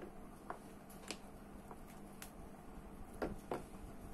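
Scattered light clicks and taps of small spinning-reel parts and tools being handled during reassembly of the reel body, about six in all, two close together near the end, over a faint steady hum.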